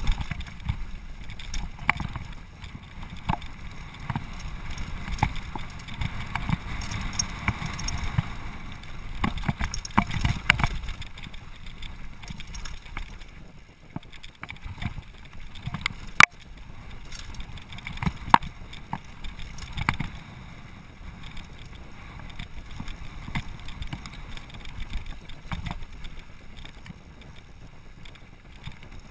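Mountain bike riding fast down a rough dirt trail: a steady rumble of wind and tyres, with frequent knocks and rattles as the bike hits bumps, and one sharp clank about sixteen seconds in.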